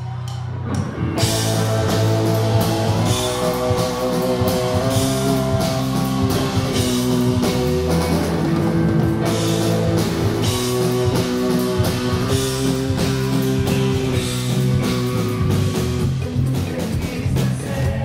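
Rock band playing live on electric guitar, bass guitar and drum kit, with no singing. A low held bass note gives way about a second in to the full band, with drum and cymbal strokes under the guitar line.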